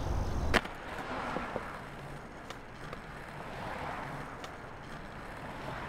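Steady outdoor ambience, a soft even hiss with no clear source. A sharp click about half a second in cuts off a louder low rumble.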